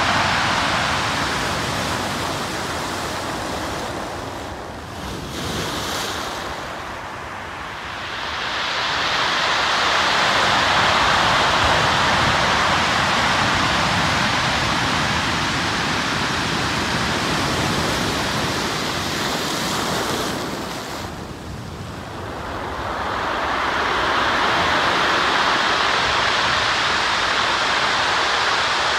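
Sea waves breaking on a pebble beach: a steady rush of surf that eases off about five seconds in and again about twenty-one seconds in, each time building back up as the next waves break.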